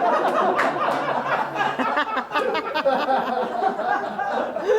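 Theater audience laughing loudly together, a dense roar of many voices that eases off near the end.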